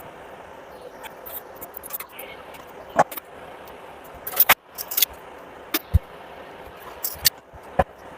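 Irregular sharp clicks, knocks and small jingly rattles of hard parts being handled, as battery packs and their parts are worked on, over a steady background hiss.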